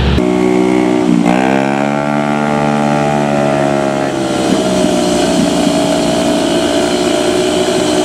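Diesel engine of a Hino truck running. Its pitch drops sharply about a second in, then climbs back and holds steady, settling into another steady note around four seconds in.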